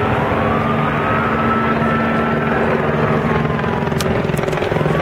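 Helicopter rotor chopping overhead in a steady, continuous drone, with a faint high tone gliding slowly up and down above it.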